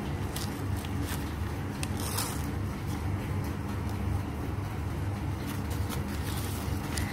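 Steady low rumble with a few light clicks and a short rustle about two seconds in.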